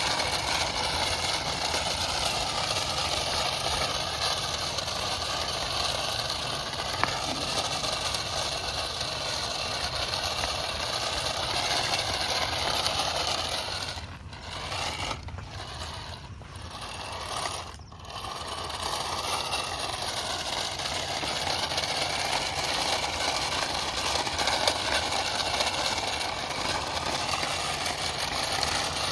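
Toy RC cars running: the whine of small electric motors and gears with the rattle of plastic wheels and bodies. The sound drops off for a few seconds about halfway through, then comes back.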